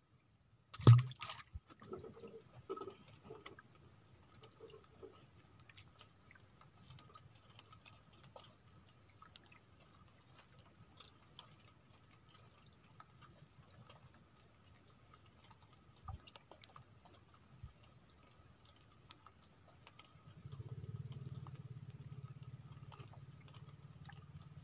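A single sharp knock about a second in, then a few softer knocks and faint scattered ticks over a faint steady high tone. A low rumble comes in near the end.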